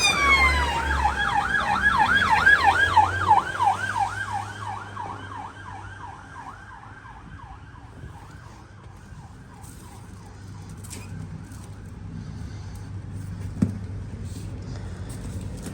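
Emergency vehicle siren in a fast yelp, its pitch swooping up and down about four times a second. It is loud at first and fades over several seconds, over the low rumble of traffic, with a single short knock near the end.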